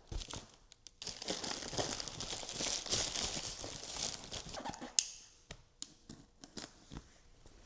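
Plastic air-cushion packaging crinkling as it is handled and pulled away from a box, ending in a sharp snap about five seconds in, then a few light handling clicks.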